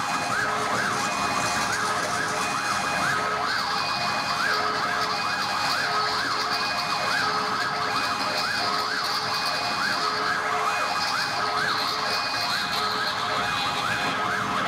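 Live synthesized electronic music: siren-like tones sweep up and down about twice a second over short, pulsing steady tones. A band of high hiss comes in about three seconds in.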